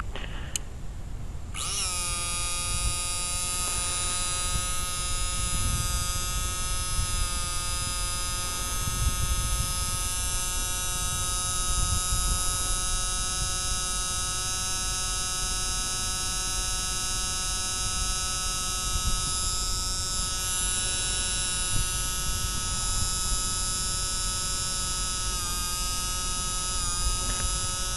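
Small electric fuel pump switching on about two seconds in and running steadily with a high, buzzing whine while it fills the turbine truck's tanks with fuel. The pitch sags briefly twice near the end.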